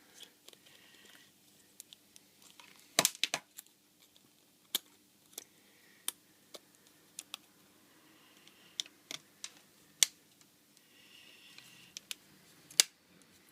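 Sharp little clicks and taps of a Nokia E72's plastic front cover being fitted and pressed onto the phone, its clips snapping in. The clicks come scattered and irregular, with a quick cluster of the loudest about three seconds in.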